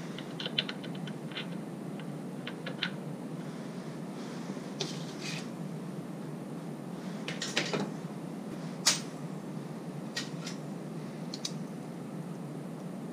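Small metal clutch parts and snap ring pliers clicking and clinking as they are handled during Sportster clutch reassembly: a quick run of light clicks near the start, then scattered single clicks, the loudest about nine seconds in, over a steady low background hum.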